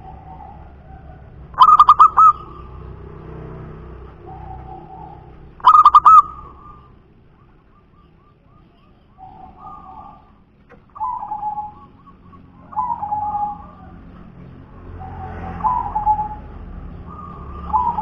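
Zebra dove (perkutut) cooing: two loud bursts of rapid, stuttering coo notes about four seconds apart, then softer single coos every couple of seconds.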